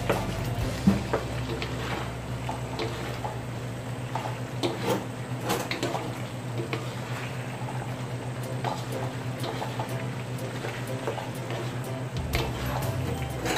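Wooden spatula and plastic slotted spatula scraping and knocking against an aluminium wok while stirring a simmering beef stew in tomato sauce, with irregular clicks and scrapes over a steady low hum.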